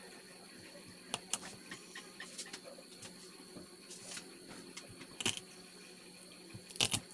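Irregular sharp clicks and knocks of a kitchen knife and garlic cloves against a chopping board as garlic is peeled and cut, the loudest double knock near the end.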